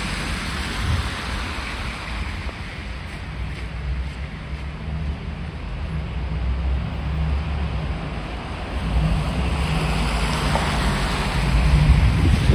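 City street noise: a low rumble of traffic mixed with wind buffeting the microphone, swelling louder in the second half.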